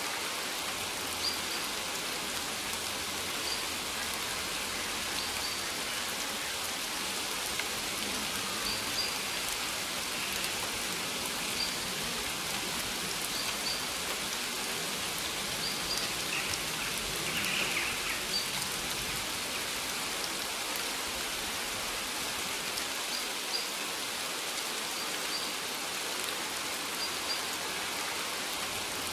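Steady rain falling on maize leaves, an even patter. Faint short high chirps recur every second or two.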